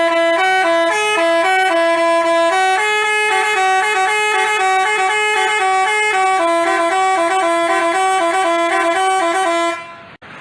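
Basuri telolet bus horn playing a tune of held notes that step from pitch to pitch, cutting off suddenly near the end.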